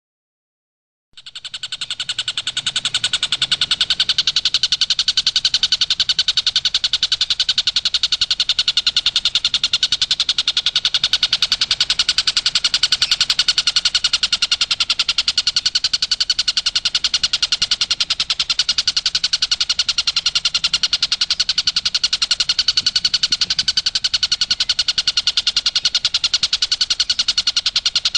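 Tengkek buto (a kingfisher) giving its 'tembakan' call: a loud, very rapid, unbroken run of sharp high notes. It starts suddenly about a second in and goes on without a pause.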